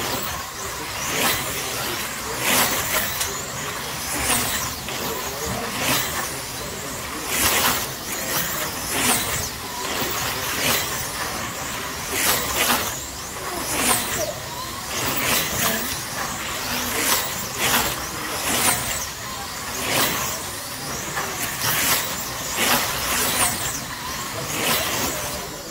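Slot-car racing trucks' small electric motors whining as they race around a multi-lane track, the sound swelling sharply each time the pack whizzes past, about every second and a half.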